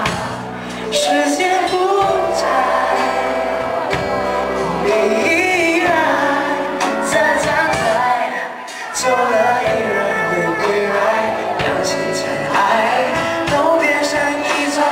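Male singer singing live into a microphone, accompanied by a band playing sustained bass and keyboard-like chords with light percussion.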